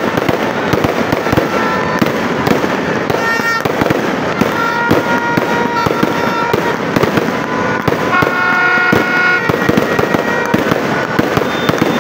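Fireworks display: aerial shells bursting in a dense, unbroken run of bangs and crackling, with a few held high tones sounding over it now and then.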